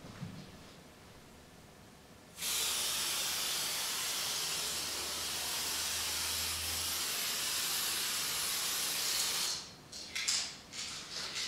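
Aerosol can of construction spray paint spraying in one continuous hiss for about seven seconds, starting a couple of seconds in and cutting off suddenly. A few light clicks and knocks follow near the end.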